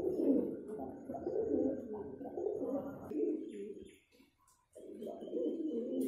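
Domestic pigeons cooing, a low throaty coo that breaks off about four seconds in and starts again near the end: the courtship cooing of a pigeon pair.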